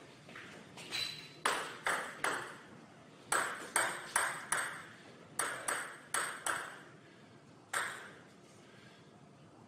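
Table tennis ball striking the table and bat: sharp ringing ticks in three quick runs of about four hits, each hit about half a second apart, then a single tick near the end.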